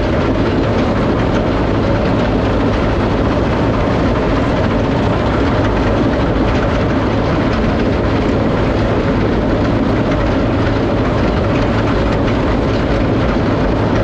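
John Deere 820 tractor running steadily under load, pulling a 489 Haybine mower-conditioner through heavy hay: a constant engine and machinery din.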